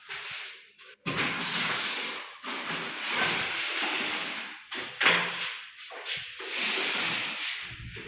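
A run of swishing, scraping strokes, each a second or two long, with short breaks between them.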